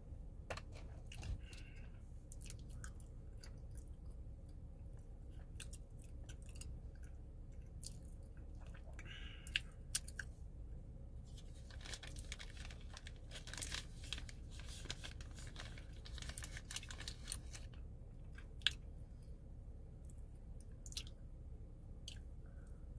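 Crunchy food being bitten and chewed close to the microphone: scattered sharp crunches, with a dense run of them about halfway through.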